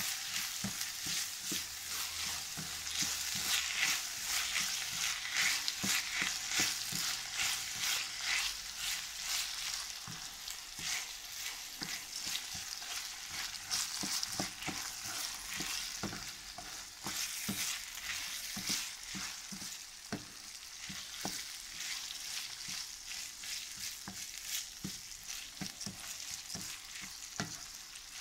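Arborio rice and chopped onion sizzling in olive oil in a frying pan, stirred steadily with a wooden spoon that scrapes and shifts the grains. The rice is being toasted in the oil until glossy. The sizzle eases a little after about ten seconds.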